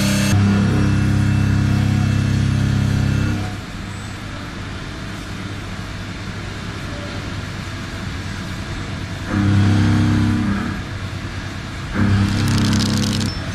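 WFL M60 CNC turn-mill machine cutting a crankshaft: a loud, steady low machine hum that drops to a quieter hiss after a few seconds. The hum comes back twice briefly later, the second time with a sharp hiss over it.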